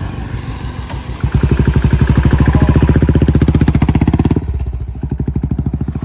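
A motorcycle engine running loud with a fast, even pulsing beat. It gets much louder about a second in and eases off a little after about four seconds.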